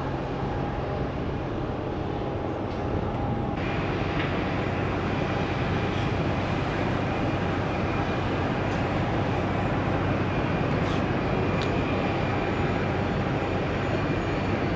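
Steady airport engine noise with a few thin whining tones. It turns brighter and a little louder about four seconds in.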